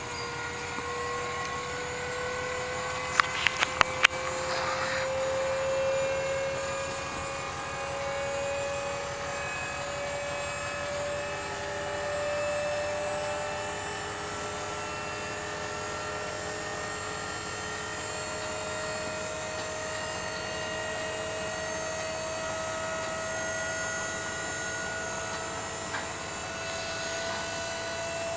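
Dump trailer's hydraulic pump motor running as it raises the loaded bed: a steady whine that climbs slowly in pitch. Four sharp clicks about three to four seconds in.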